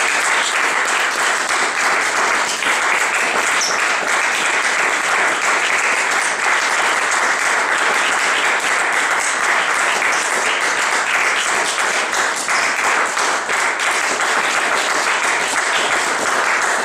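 Audience applauding steadily, a dense clapping of many hands.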